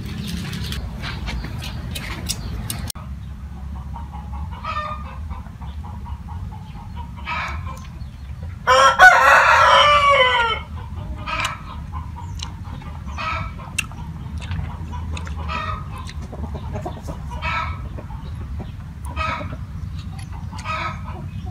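A rooster crows once, loud, for about two seconds near the middle, with chickens clucking in short calls about once a second around it. A few sharp clicks in the first few seconds.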